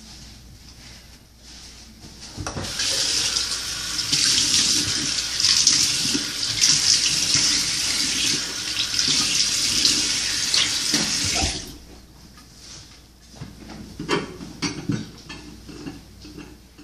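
Bathroom sink tap running for about nine seconds while a face is washed under it, then turned off abruptly. Softer rustling follows as the face is dried with a towel.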